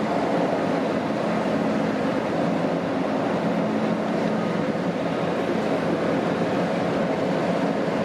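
Keihan electric commuter train running along the line, heard from inside the front car: a steady, unchanging rumble of wheels on rail.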